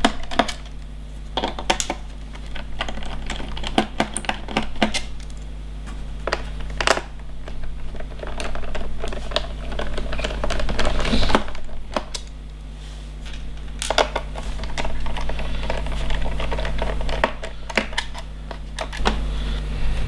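Irregular small clicks, taps and knocks of hands and a small screwdriver working on a plastic HP 15-DA laptop: screws being taken out of the base, then the laptop turned over and handled. A steady low hum runs underneath.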